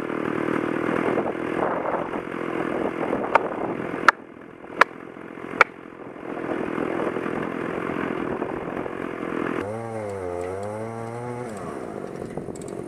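Two-stroke Stihl chainsaw running under load while felling a large ash tree. The saw drops off about four seconds in, and a few sharp cracks follow. The saw then runs again and fades near the end.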